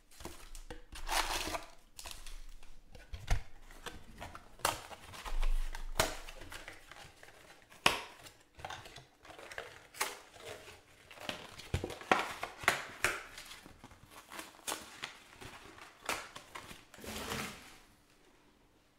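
Foil trading card packs crinkling and rustling as they are handled, with scattered sharp clicks and taps; the handling stops near the end.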